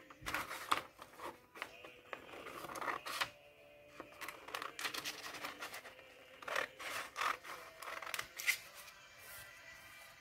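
Small craft scissors snipping through a paper sticker sheet: runs of quick cuts with paper crackling. The cutting pauses briefly about four seconds in and stops near the end. Soft background music plays underneath.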